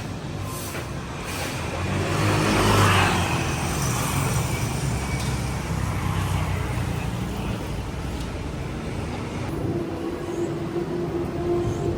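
Road traffic: a motor vehicle passes close by, loudest about three seconds in, over a steady hum of traffic.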